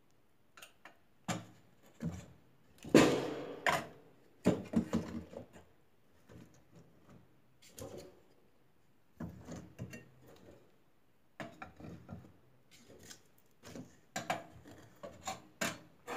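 Pieces of firewood being loaded into a wood stove's firebox: irregular wooden knocks and scrapes of sticks against each other and the metal box, with the loudest clatter about three seconds in and lighter handling after.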